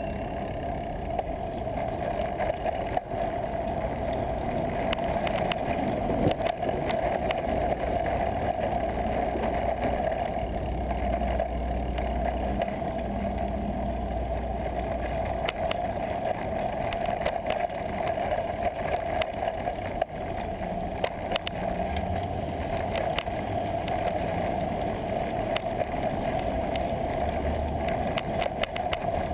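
Steady wind and road noise of a bicycle riding through city traffic, picked up by a camera mounted on the bike, with small rattles and clicks from the bike and low engine rumble from passing traffic coming and going.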